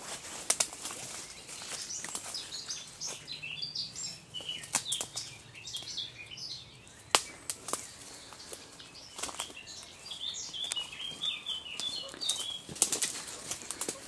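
Footsteps rustling and crackling through dry leaf litter and twigs in dense undergrowth, with a sharp crack about seven seconds in. Songbirds chirp and sing in the background.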